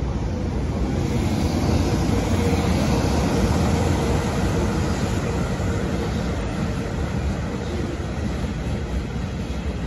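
JR Freight EH200 electric locomotive hauling a train of tank wagons past, a steady rush of wheel and rail noise that swells over the first few seconds and eases a little near the end.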